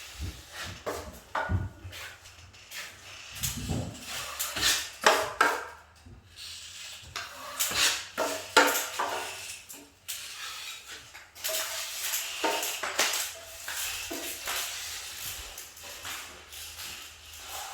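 Hand drywall finishing tools scraping and clinking irregularly, metal on metal.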